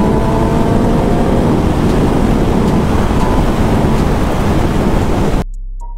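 Motorcycle riding at speed, with heavy wind rushing over the microphone and the engine note easing slightly in the first second or so. The sound cuts off abruptly near the end.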